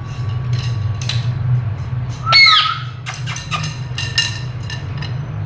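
Indian ringneck parrot giving one loud squawk about two seconds in, rising then falling in pitch, followed by a quick run of short clicks and soft chirps, over a steady low hum.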